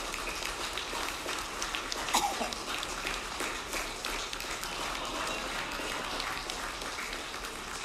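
A crowd applauding, a dense patter of many hands with a murmur of voices, peaking briefly about two seconds in.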